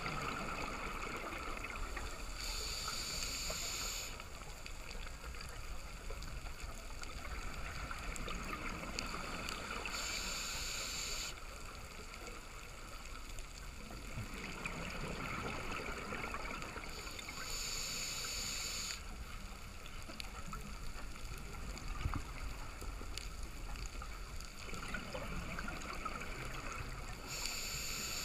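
Scuba diver breathing through a regulator, heard underwater. A short hiss of inhalation comes about every seven to eight seconds, four times, with softer bubbling exhalations between them over a steady underwater rumble.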